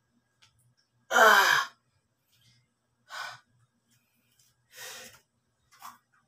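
A man's loud, voiced sigh about a second in, its pitch falling, followed by three shorter, quieter breaths out: heavy breathing from the exertion of a set of push-ups.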